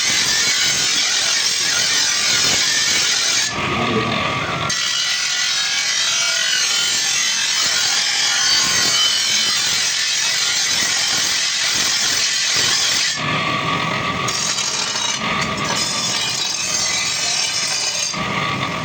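Steady harsh abrasive rasping of a steel grass-cutter blade being worked with an abrasive tool, changing in tone briefly a few times.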